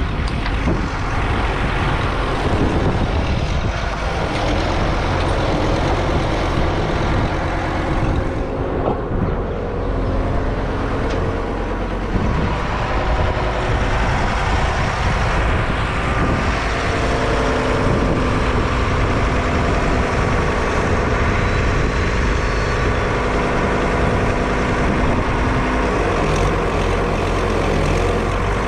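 Heavy farm machine's diesel engine running steadily, its note shifting several times.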